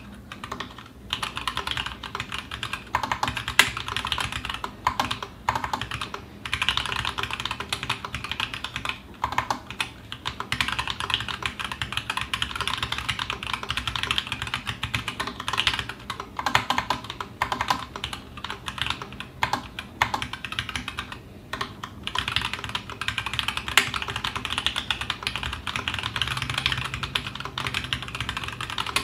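Fast continuous typing on a TGR Alice mechanical keyboard with stock 78g Zealio V2 tactile switches and GMK keycaps. Its dense key clacks have short pauses now and then and a few louder hits.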